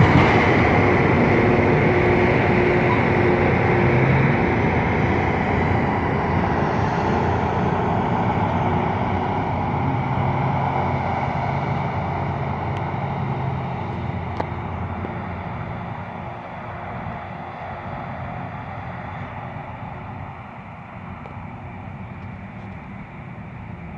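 Loram rail grinder running past and moving away, a steady engine drone over a wide rushing noise that fades gradually.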